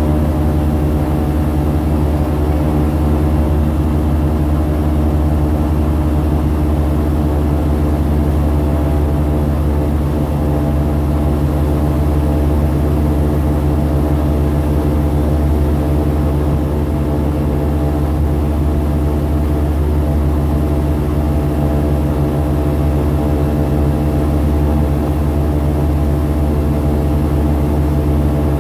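Airboat engine and air propeller running steadily while the boat is underway, heard from on board: a loud, even drone that holds one pitch throughout.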